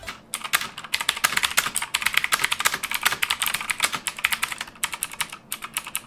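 Fast typing on a Motospeed CK101 mechanical keyboard with clicky Outemu blue switches: an uneven stream of sharp clicks, many keystrokes a second.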